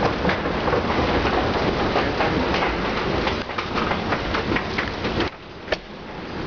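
Metro station escalator running with a loud, dense rattle of many clicks as its steps roll along. It drops away suddenly about five seconds in, when the top is reached and the rider steps off onto the landing; a single click follows.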